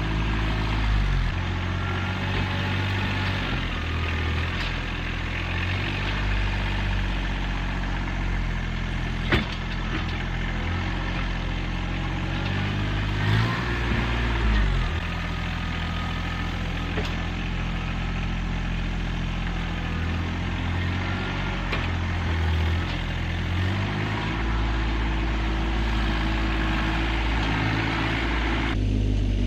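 RK 25 sub-compact tractor's engine running, its speed stepping up and down several times as it works. A sharp knock about nine seconds in.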